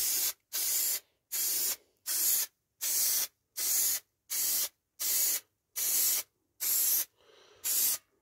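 Aerosol can of SA90 spray contact adhesive hissing out in short, even squirts, about a dozen at roughly one and a half a second, with a brief pause near the end, as the glue is laid on liberally.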